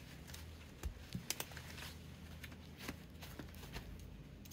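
Scattered light clicks and rustling from handling tools and materials, over a steady low hum.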